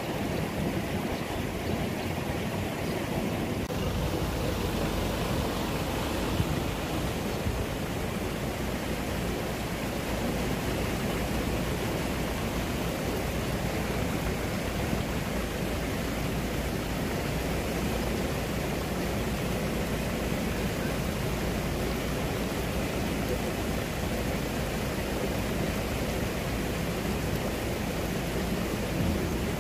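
Steady wind noise rushing over the microphone, with a low rumble that thickens a few seconds in.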